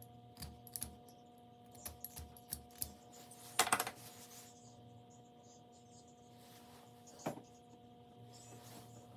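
Light clicks and taps of small hard objects being handled, with a louder brief clatter about three and a half seconds in and another about seven seconds in, over a steady low hum.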